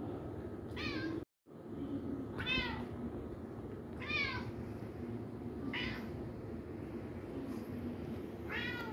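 Kitten meowing: five short, high-pitched meows, spaced about one and a half to three seconds apart.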